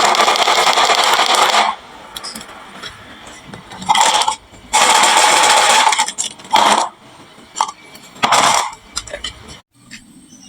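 Marbles clattering down a wooden marble-run slope: a dense rattle at the start that stops after under two seconds, then several shorter bursts and scattered clicks.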